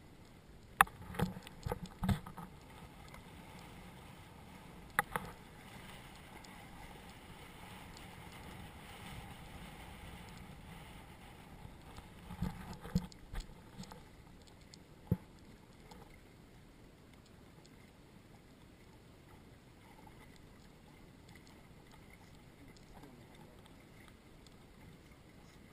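Hobie Cat catamaran under sail through choppy water: a steady rush of water and wind against the boat, broken by sharp knocks and slaps in clusters near the start, about five seconds in, around thirteen seconds and once at fifteen seconds.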